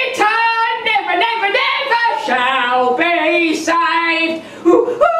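A woman singing in held, wavering notes, with a short break for breath near the end.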